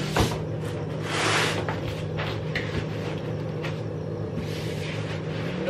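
Cardboard shipping box being handled: flaps rustling and the welder scraping against the cardboard as it is lifted out, loudest about a second in, over a steady low hum.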